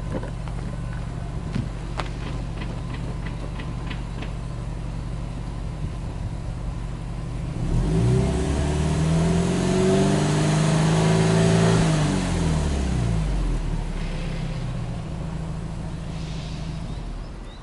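Subaru Impreza WRX STI's turbocharged flat-four exhaust idling steadily, then revved up about eight seconds in, held high for about four seconds, and let fall back to idle. The engine note drops away right at the end.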